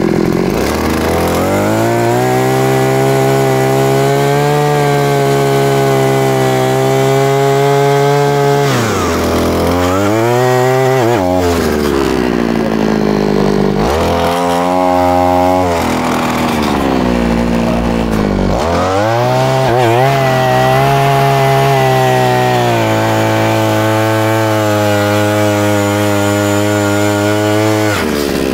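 A power tool's motor running at high speed, its pitch sagging and recovering three times, about ten, fourteen and twenty seconds in.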